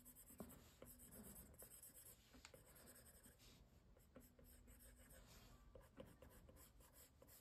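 Near silence with the faint scratching and light taps of a plastic stylus tip drawing strokes across an iPad's glass screen.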